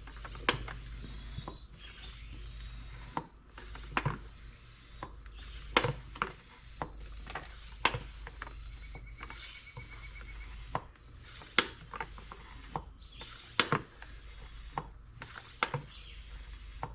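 A small wheelbarrow tire being inflated: irregular sharp clicks and knocks about every second or two, over a steady low hum.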